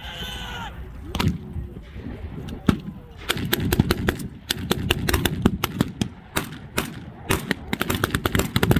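Blank-firing small arms in a WWII battle reenactment: a few single shots, then from about three seconds in a rapid, dense volley of shots and automatic bursts. A man shouts briefly at the start.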